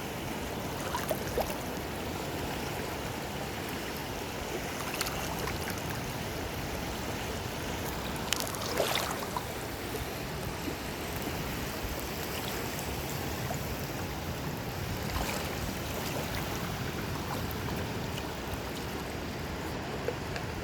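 Steady rushing noise of sea waves washing on the shore, with a few faint clicks and taps.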